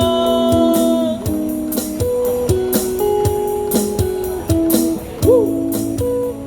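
Live band music: a held sung note ends about a second in, then electric guitar, bass and drums play on with a steady beat.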